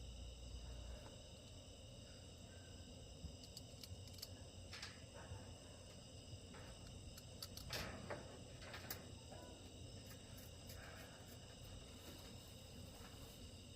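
Steady chorus of insects chirping, with scattered faint clicks and taps of screws and tools on the unit's metal housing.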